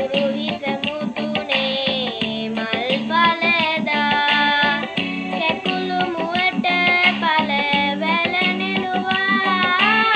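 A young boy singing a song in long held, gliding notes over an instrumental backing.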